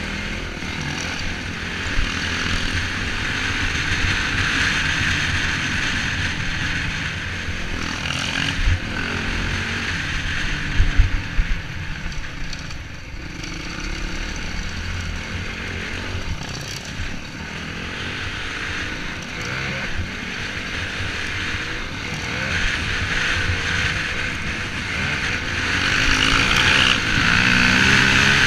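Off-road motorcycle engine heard from the bike the camera is mounted on, rising and falling with the throttle while riding a dirt trail, with wind noise on the microphone. A few sharp knocks come about a third of the way in, and it grows louder near the end.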